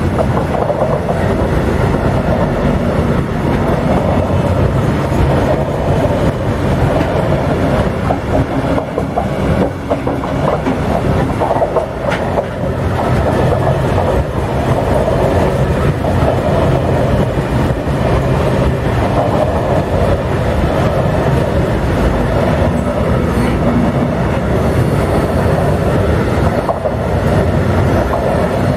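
Freight train of covered hopper wagons rolling past close by: a continuous rumble of wheels on rails, with repeated clacks as the wheels run over rail joints.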